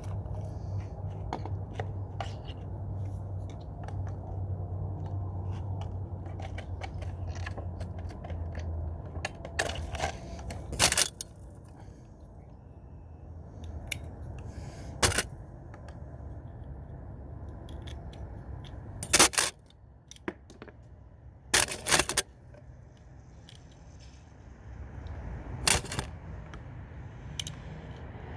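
Air rifle magazines being loaded by hand with pellets: small metal clicks and clinks, with a handful of sharp clicks spaced a few seconds apart. A low steady hum runs underneath and stops about nine seconds in.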